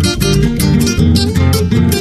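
Acoustic guitars of a Paraguayan folk guitar duo strumming chords in a steady rhythm.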